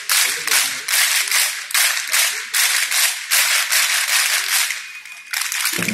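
A large group clapping in unison to a drill rhythm, about two claps a second, dropping away briefly near the end before starting again.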